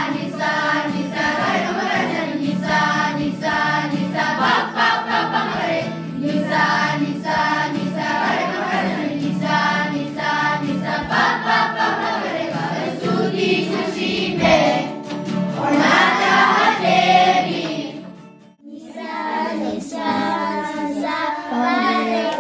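A children's school choir singing together over a steady instrumental accompaniment. About three-quarters of the way through the sound drops away briefly, then singing starts again.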